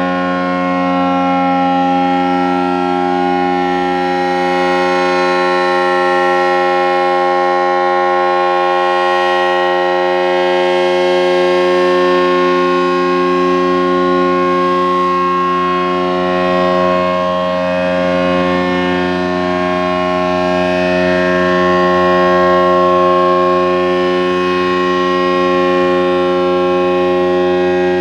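ACA Allertor 125 outdoor warning siren sounding its steady alert tone, swelling gently in loudness. It runs slower and lower in pitch than normal, which the owner puts down to a short in the motor windings.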